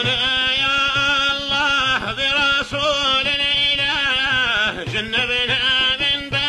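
A man chanting an Arabic qasida solo in long, ornamented held notes that bend up and down, over a steady low beat of about two pulses a second.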